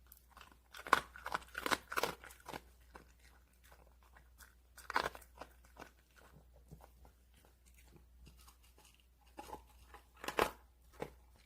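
A Welsh corgi crunching dry kibble, in bursts of crunches with quieter pauses between mouthfuls.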